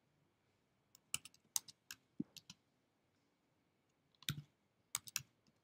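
Faint typing on a computer keyboard: two short runs of key clicks, one starting about a second in and another near the end, as a word is typed into a spreadsheet cell.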